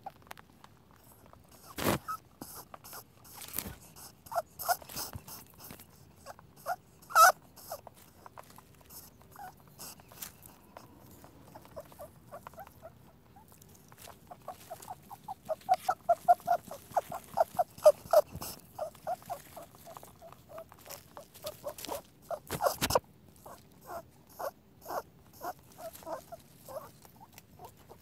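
Rabbit squeaking: trains of short, high squeaks at about five or six a second, thickest through the middle, with a few sharp clicks between.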